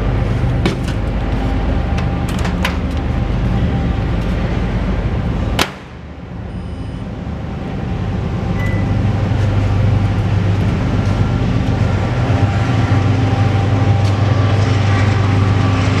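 GE countertop microwave oven being started: a sharp click about a third of the way in, a short keypad beep a few seconds later, then the oven running with a steady low hum. Light handling ticks and noise come before the click.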